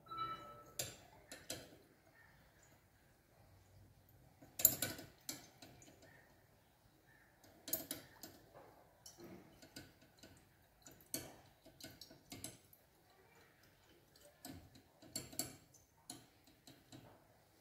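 Faint, scattered clicks and light glass taps from a conical flask handled and swirled under a burette during a titration, the loudest tap about four and a half seconds in.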